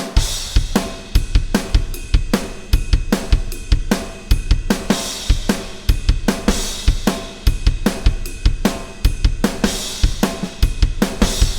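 Acoustic drum kit played alone, with no other instruments: a steady rock beat of kick drum, snare and hi-hat with cymbal crashes, starting suddenly at the very beginning.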